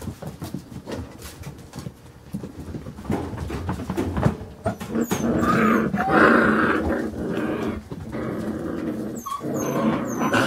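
Five-week-old Carolina Dog puppies growling at each other in play, with short high yelps mixed in. Scrabbling and tapping come first, and the growling builds from about four seconds in.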